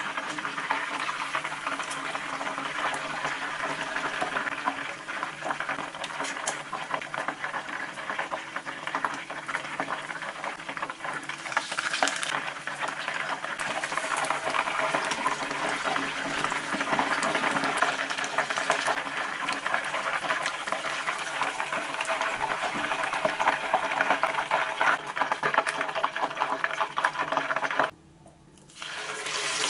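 Spiced, flour-coated chicken thigh deep-frying in hot oil in a small saucepan: a dense, steady sizzling crackle of bubbling oil. It is briefly louder about twelve seconds in, and cuts out for under a second near the end before resuming.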